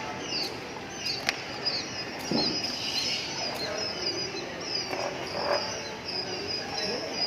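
Busy high-pitched chirping from small animals, many short calls one after another, with a sharp click about a second in.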